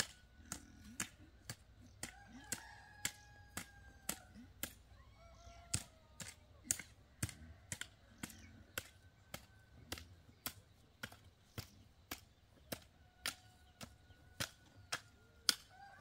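Chickens calling in drawn-out notes over a steady run of sharp clicks, about two a second.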